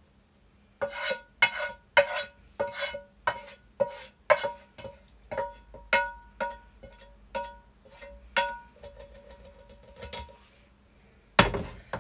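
A utensil tapping repeatedly against a ceramic dinner plate, about three taps a second, each tap ringing briefly, while food is plated. One louder knock comes near the end.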